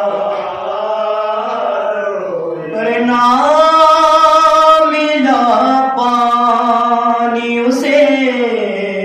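Men's voices, unaccompanied, chanting a soz, a Shia mourning elegy, in slow drawn-out notes. A lead reciter and a chorus of companions hold the lines together, growing louder about three seconds in.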